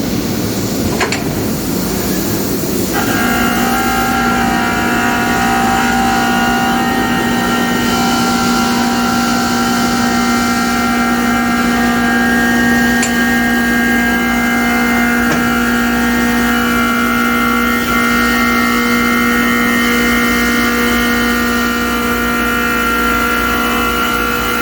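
CNC grinding and deburring machine running: a steady mechanical noise, joined about three seconds in by several steady whining tones that hold unchanged.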